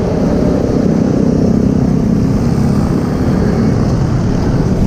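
A motorcycle being ridden along a road, heard from the rider's seat: a steady rumble of engine and riding noise.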